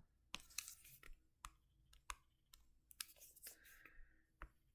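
Faint, irregular clicks spaced about half a second to a second apart, with a few short scratchy stretches in between, typical of clicking and writing while working at a computer.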